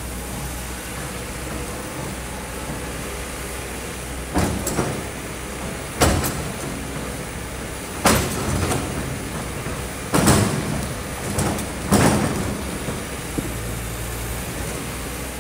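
Kobelco hydraulic excavator's diesel engine running steadily, with five loud crashes about two seconds apart as the bucket digs into the rocky sand slope, each followed by a brief rattle of stones.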